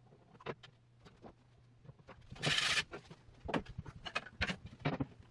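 Light knocks and clatter of hand tools and a plywood sled base being handled on a table saw, with a brief hiss about two and a half seconds in and a run of knocks near the end.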